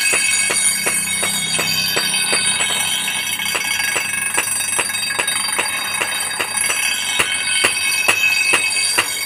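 Steel cleaver blade being ground on an electric grinding wheel: a steady, high metallic ringing whine with regular ticks about three times a second.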